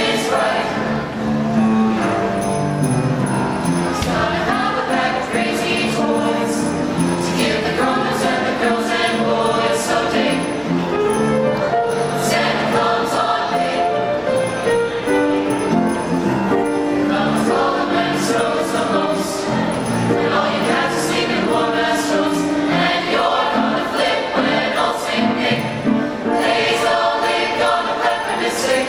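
Mixed choir of female and male voices singing a Christmas song in several parts.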